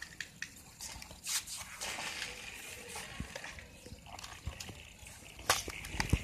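Card pieces of a 3D puzzle model ship being handled and pressed into place: scattered light clicks and rustles, with a couple of sharper clicks near the end.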